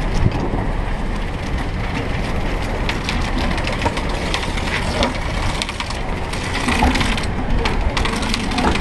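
A sailboat's sheet winch being cranked as a sail is trimmed in: a dense run of clicks and knocks over a steady rush of wind and water.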